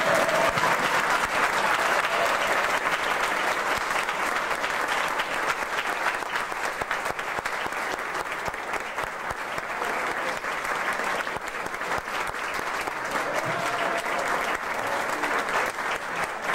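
A roomful of people applauding, dense steady clapping.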